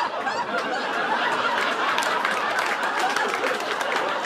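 Comedy club audience laughing steadily, with scattered clapping throughout.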